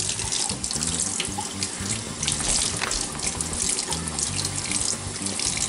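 Water running hard from a kitchen tap and splashing, with background music underneath.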